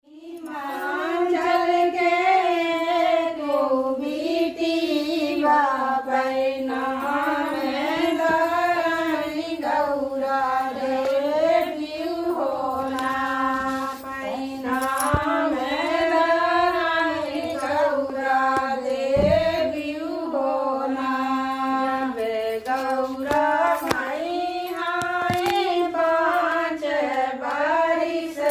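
Women singing a kajari, a devotional folk song to Gaura Mai (Parvati), in long wavering melodic lines that carry on without a break.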